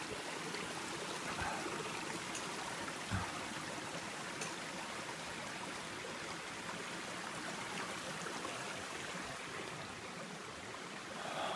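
Steady rush of running water, a creek flowing after overnight rain, with a couple of faint clicks.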